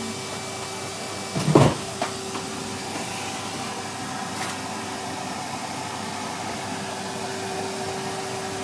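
Vacuum cleaner running steadily with a constant hum, with one loud knock about one and a half seconds in.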